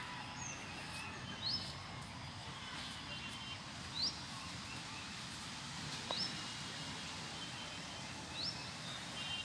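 A bird repeating a short, quick rising chirp about every two seconds, four times, over a steady low background rumble.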